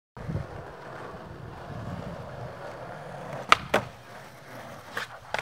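Skateboard wheels rolling over pavement. About three and a half seconds in come two sharp clacks as the board hits the edge of a wooden ledge, and near the end a loud slap as it comes down again.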